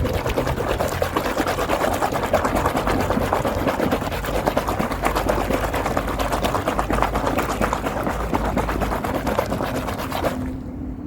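Gritty block crumbling in foamy water: a dense, rapid crackle that stops abruptly near the end.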